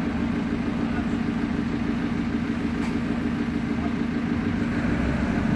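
Diesel engine of heavy construction machinery running with a steady low drone.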